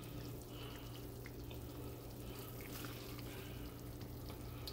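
Faint wet squelches and small ticks of a plastic serving spoon scooping cheesy baked pasta out of a glass baking dish into a ceramic bowl, over a steady low hum.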